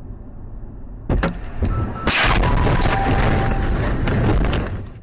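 Car collision heard from the dashcam inside the car: steady road noise, then a hard knock about a second in, and from about two seconds in a loud, sustained crash of crunching and scraping with repeated sharp knocks, cut off abruptly at the end.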